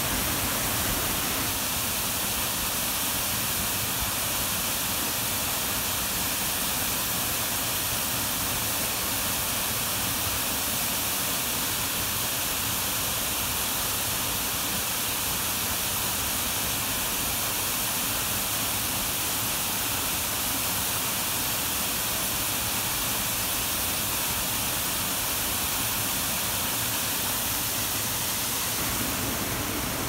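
A tall waterfall pouring into a pool: a steady, unbroken rush of falling water.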